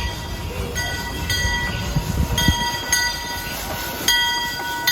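Locomotive bell of the park's steam train ringing, struck again about every two-thirds of a second and ringing on between strokes, over the low rumble of the passing train.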